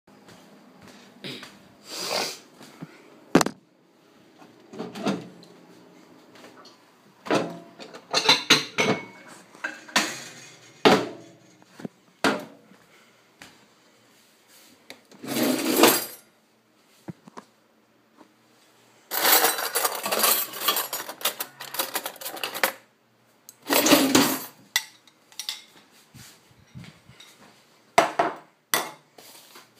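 Eating cereal: a spoon clinking and scraping against a bowl in scattered sharp knocks and short noisy bursts, with a longer rustling stretch about two-thirds of the way through.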